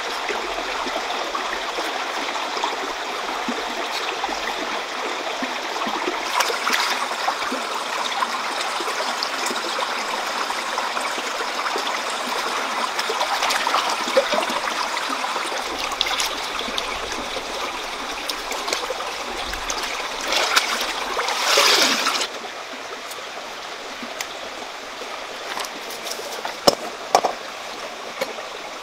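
Shallow stream water running steadily. About 22 seconds in it gives way to a quieter background, with a few sharp knocks near the end.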